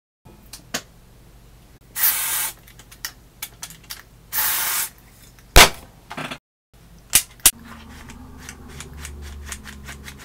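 Two short hisses from a WD-40 aerosol spray can, each about half a second long, followed by a single sharp click and then a few lighter clicks and taps.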